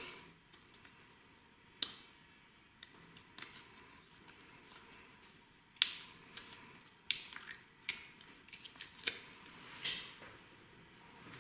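Small jars of hybrid nail gel being handled and opened on a table: scattered light clicks and taps, with a quicker run of them between about six and ten seconds in.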